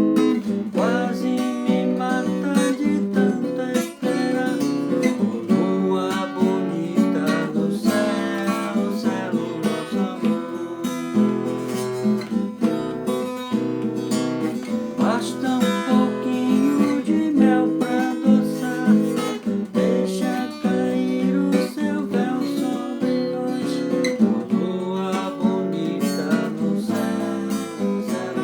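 Acoustic guitar playing the chords of a song, strummed and picked, with no singing.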